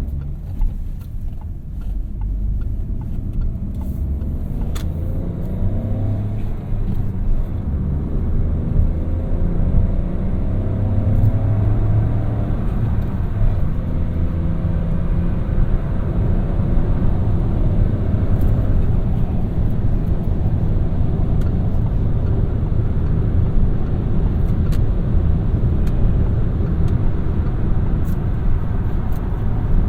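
A Peugeot 3008's 1.2 PureTech turbocharged three-cylinder petrol engine pulling the car along with low road and tyre rumble. Its pitch rises over the first several seconds as the car accelerates, then it runs steadily.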